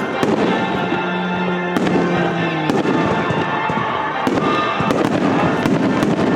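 Fireworks display: a rapid string of bangs over dense crackling, with no break.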